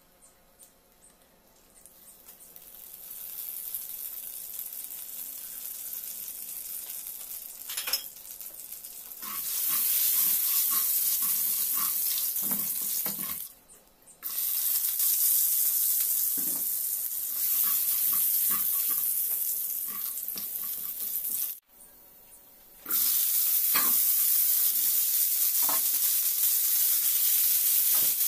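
Cooking oil heating and then sizzling loudly in a frying pan as chopped garlic and then vegetables fry, with a few clicks and scrapes of a spatula. The sizzle swells in over the first few seconds, cuts off suddenly twice and comes straight back.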